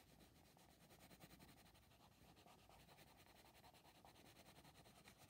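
Near silence: the faint scratching of a Derwent Coloursoft coloured pencil shading on paper.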